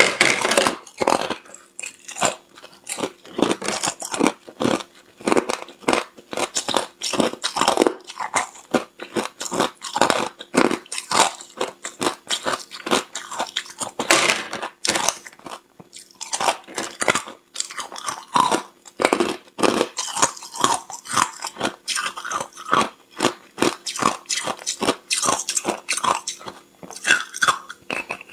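Hard clear ice being bitten and chewed, close to the microphone: a dense run of sharp, crackling crunches as pieces break off and are crushed between the teeth.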